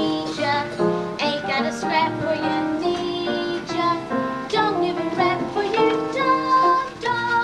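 A song: a high child's singing voice over instrumental accompaniment, with notes changing several times a second.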